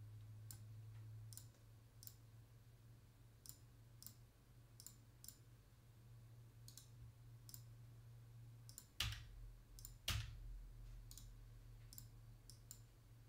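Faint, scattered computer mouse clicks over a steady low electrical hum, with two louder knocks about nine and ten seconds in.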